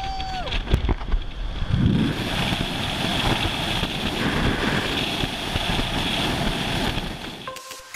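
Wind rush and road noise in an open-top Jeep Wrangler at highway speed, with the wind buffeting the microphone. The sound is a steady rush that dips just before the end.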